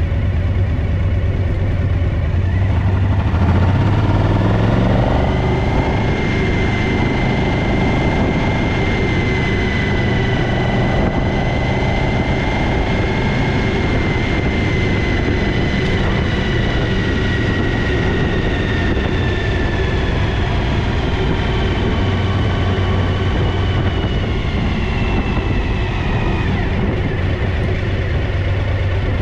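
A vehicle engine running steadily, with a thin high whine that rises about six seconds in and slowly falls away near the end.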